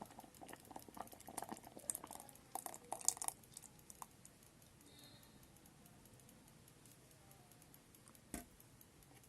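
Faint small clicks and scrapes of a bowl and utensil as dissolved soup mix is poured and scraped into an electric kettle of cooked oats, for about three seconds. Then it goes quiet, with a single knock near the end.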